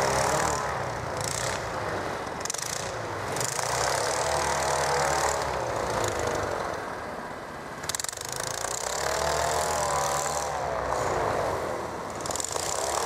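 The twin-engine tiller air-propulsion unit of a small aeroboat (Sapsan-18B-2D, 18 hp, wooden propeller), running as the boat is driven over snow. The engine pitch rises and falls with the throttle, easing off about six seconds in and picking up again around eight seconds.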